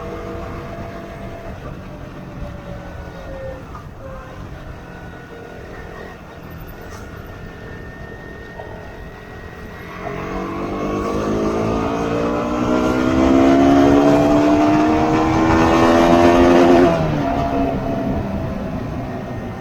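Motorcycle engine running on the road. From about ten seconds in, a louder engine sound climbs steadily in pitch and loudness, then drops sharply in pitch near the end.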